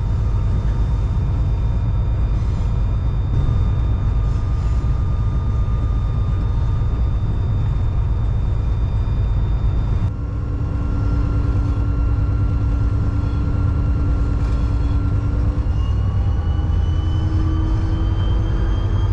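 EMD SD40-3 diesel-electric locomotive under way, a steady low rumble of its two-stroke diesel engine mixed with wheels running on the rails. About halfway through the sound changes abruptly, and faint whining tones set in that slowly rise in pitch near the end.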